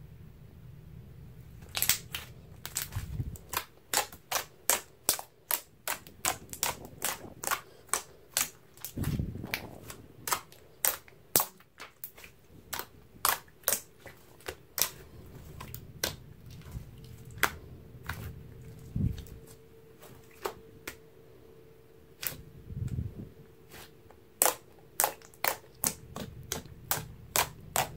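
Sharp clicking pops from fingers poking and pressing a large batch of thick, glossy slime as air pockets in it burst. The pops come about one or two a second, starting about two seconds in, with a short lull past the middle, and there are a few soft squishing thuds among them.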